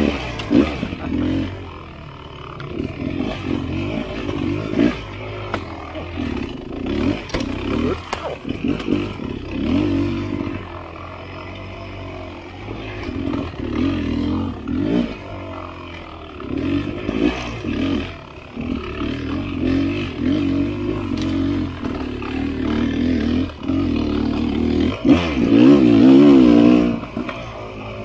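Dirt bike engine on slow, technical single track, revving up and dropping back again and again as the throttle is worked, with scattered knocks and clatter. The longest and loudest rev comes near the end.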